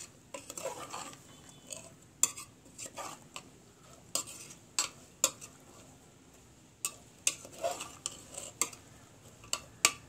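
Metal ladle stirring wet chopped chayote and dal in an open pressure cooker, scraping and knocking against the pot at irregular moments.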